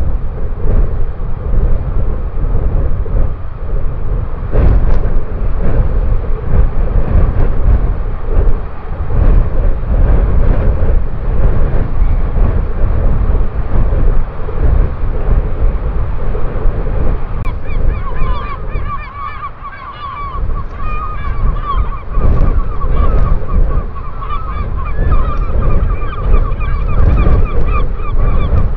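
Wind buffeting the microphone with a heavy, steady rumble. About two-thirds of the way through, a bird starts a rapid, wavering run of honking calls that keeps going.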